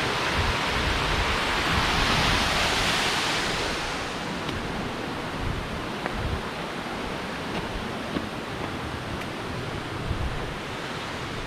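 Steady rushing of a waterfall pouring over a dam, louder for the first few seconds and then softer, with some wind rumble on the microphone.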